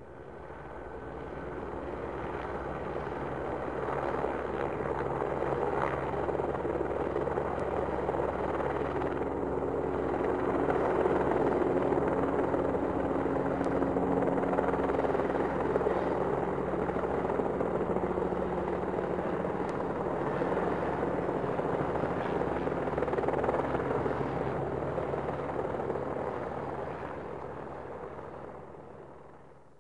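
A steady rumbling noise with a faint low hum, fading in over the first few seconds and fading out near the end.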